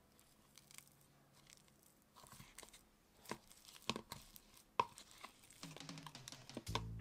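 Clay being mixed by hand with hand sanitizer, heard as faint, scattered clicks and squishes. Background music comes in near the end.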